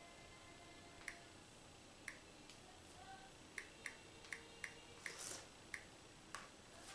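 Faint, irregular clicks of taps on a Samsung Galaxy Tab E touchscreen, most coming a few a second in a run near the middle. A brief hiss about five seconds in.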